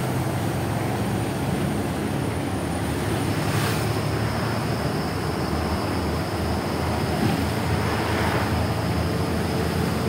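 Engine rumble with road and wind noise, heard from inside a moving road vehicle. A faint high steady whine comes in about three seconds in.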